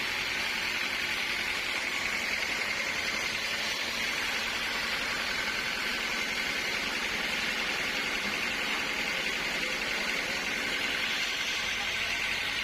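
Sawmill saw running steadily, a constant high whine over noise with no breaks.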